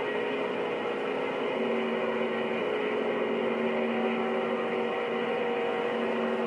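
CB radio receiver on the 11-metre band passing open-channel static during skip conditions, with steady humming tones from other carriers on the channel; a new set of tones comes in about a second and a half in.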